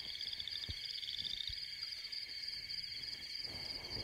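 Night-time jungle ambience: a steady, high-pitched chorus of insects, with a pulsing trill that rises slightly over the first second and a half.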